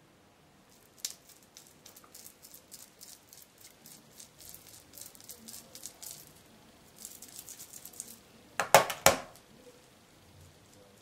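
Powder makeup brush swept and dabbed over the cheek: a quick run of faint scratchy ticks, then two louder scuffs close together near the end.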